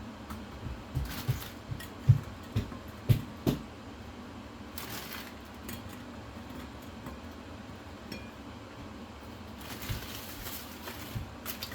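Kitchen handling sounds: a run of soft knocks and taps of dishes in the first few seconds, then a few brief rustles.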